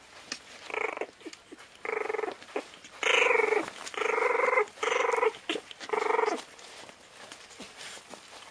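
Border terrier puppies growling as they play-wrestle: about six short, buzzy, high-pitched growls in quick succession, with light scuffling clicks between them.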